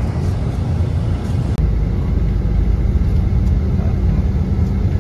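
Steady low rumble of a moving road vehicle heard from inside its cabin: engine and road noise, getting deeper about a second and a half in.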